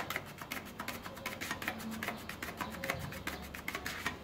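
Putty knife scraping and folding car body filler with its hardener on a spatula to mix it: quick repeated scraping strokes, several a second.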